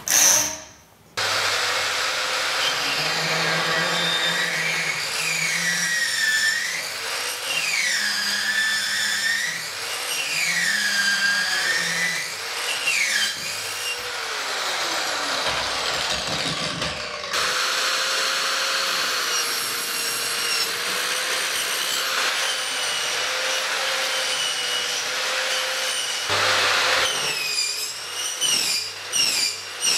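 Exact PipeCut 170 electric pipe saw running and cutting through pipe, first steel and later copper. Its whine rises and falls every two seconds or so in the first half, then runs steadier after a break about two-thirds in. Two sharp knocks sound right at the start.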